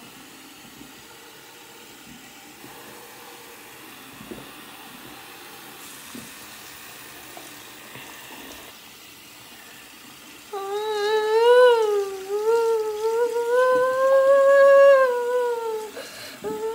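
Bathroom sink faucet running steadily into the basin. About ten seconds in, a high voice hums a long, wavering note for several seconds, rising slightly then falling. A second short hum starts near the end, and the humming is much louder than the water.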